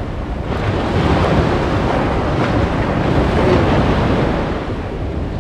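Ocean surf washing onto a sandy beach, with wind buffeting the microphone.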